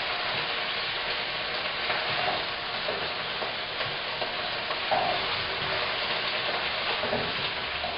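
Chicken strips sizzling in hot oil in a frying pan, with a utensil scraping and knocking against the pan as the pieces are stirred and lifted out.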